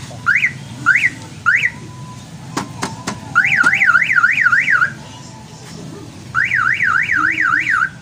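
Newly installed aftermarket car alarm siren sounding. It gives a few short rising chirps about half a second apart, then a couple of sharp clicks, then two spells of fast up-and-down warbling, each about a second and a half long, at roughly three sweeps a second.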